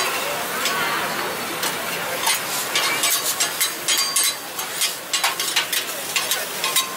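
Cabbage-and-egg okonomiyaki sizzling on a hot steel griddle, with sharp clicks and scrapes of a metal spatula against the griddle, coming quick and irregular from about a second and a half in.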